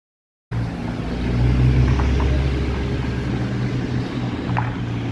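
A steady low rumble that cuts in suddenly after silence about half a second in, with a few faint ticks near the middle and the end.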